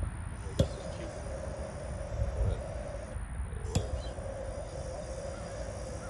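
Hand-held lighter clicked twice, about half a second and nearly four seconds in, each click followed by a few seconds of steady flame sound as it lights the sawdust-and-paper fuel in a bee smoker.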